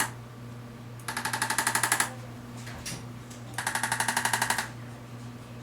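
Arthrostim electric adjusting instrument firing two bursts of rapid taps, about a dozen a second, each burst lasting about a second.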